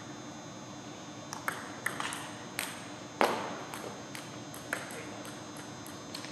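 Table tennis ball clicking back and forth off paddles and table during a rally, each hit sharp and echoing in a large gym. The hits start about a second in, with one louder crack about three seconds in.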